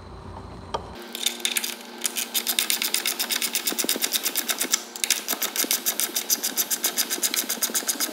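Ratchet clicking rapidly and evenly, about eight clicks a second, with a short break about halfway, as a Torx bolt is run into the mirror bracket.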